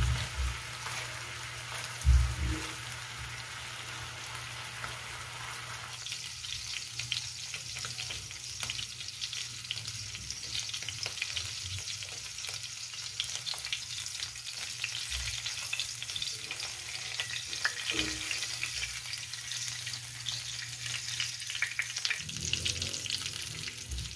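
Garlic longganisa sausages sizzling and crackling as they fry in their own rendered fat in a metal pan, the water they were simmered in now boiled off. The sizzle grows denser about six seconds in, and a fork knocks against the pan at the start and again about two seconds in.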